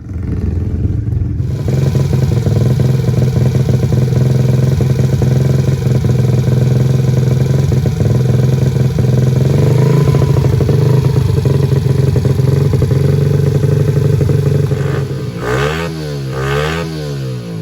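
Kawasaki KLX110L pit bike's single-cylinder four-stroke engine, fitted with a 143 big bore kit, running loud and steady. Near the end its pitch swings down and back up twice.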